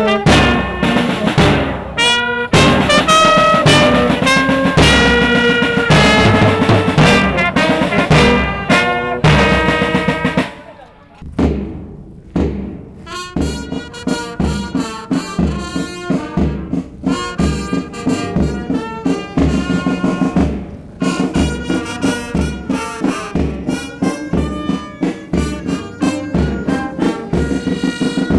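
Military brass band playing a march, brass carrying the tune over a steady drum beat. The music thins out and drops briefly about a third of the way in, then starts again with the same regular beat.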